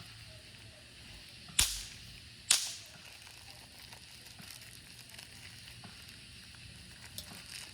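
Two sharp pops from small novelty fireworks, a little under a second apart, over a faint steady hiss.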